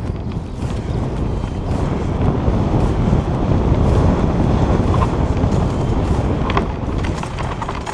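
Wind buffeting the GoPro's microphone over the rumble of mountain-bike tyres rolling fast down a dirt forest trail. The noise builds to its loudest in the middle, and a few short rattles come near the end.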